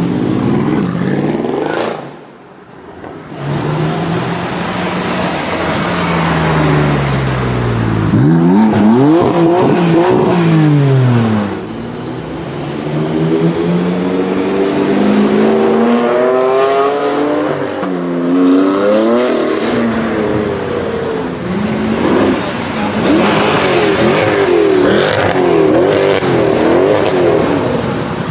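High-performance car engines accelerating and revving hard as cars drive past, the pitch climbing in steps through gear changes and falling as they go by. Near the end the pitch goes up and down several times in quick succession, like repeated revs.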